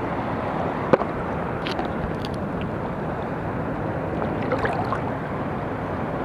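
Steady rush of shallow seawater swirling around wading legs, with a single sharp click about a second in.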